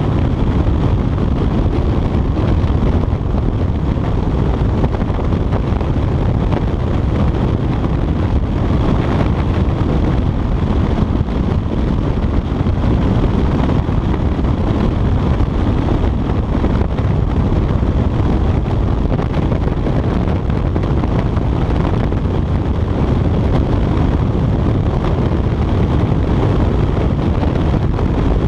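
Steady wind rushing over a chest-mounted action camera's microphone on a Honda CBR motorcycle at speed, with the bike's engine running underneath.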